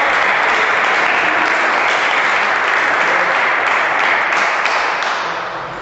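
Spectators applauding after a point in a table tennis match: steady clapping that tapers off near the end.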